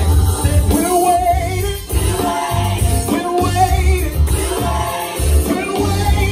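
A man singing a gospel song live into a microphone over backing music with a heavy, pulsing bass.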